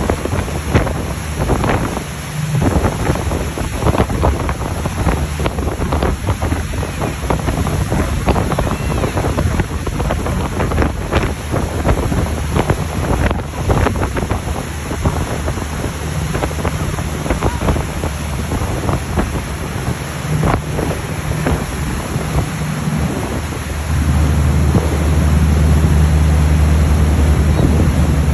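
Motorboat's wake churning and rushing behind the stern, with wind buffeting the microphone in frequent gusts. Under it the boat's engine drones low, getting louder about four-fifths of the way through.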